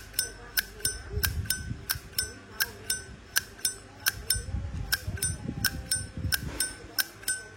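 Zippo 1932 Replica lighter lid flicked open and shut over and over, about three sharp clicks a second. Each click rings briefly like a small bell, the sign of a lid and cam tuned for a bell-like 'ching'.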